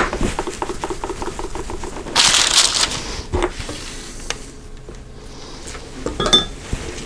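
Metal scoop and spoon scraping and clinking against a stainless steel mixing bowl while scooping out cookie dough. There is a scrape about two seconds in and scattered light clinks, with a brief metallic ring near the end.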